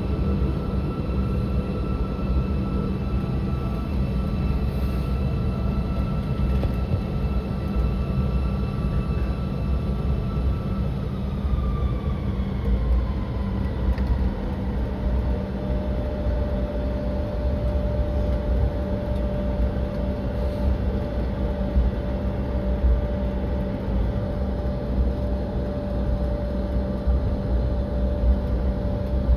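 Airliner cabin noise from a jet taxiing: a steady low rumble and rush from the engines and air system. A steady whine drops in pitch about eleven seconds in, and a lower steady tone joins a few seconds later.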